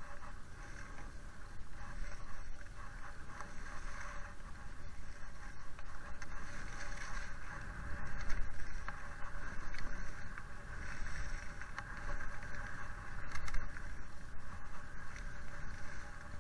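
Dynastar Speed Cross Pro skis running down a packed piste: a continuous rushing, scraping hiss of the skis on the snow that swells and fades with the turns, with wind rumbling on the action camera's microphone.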